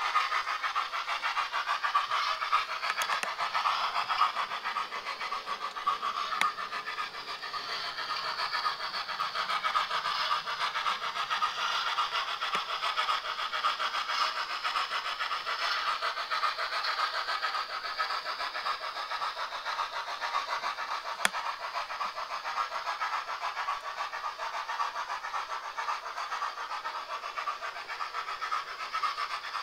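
Model railway locomotive's DCC sound decoder playing steady, rapid steam-engine chuffing through its small onboard speaker as the model runs, with a few faint clicks.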